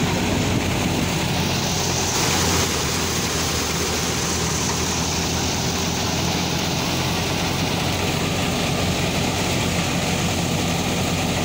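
Tractor-driven crop thresher running steadily, with the 640 tractor's engine humming underneath as stalks are fed in. A higher rushing hiss joins about a second in and keeps on.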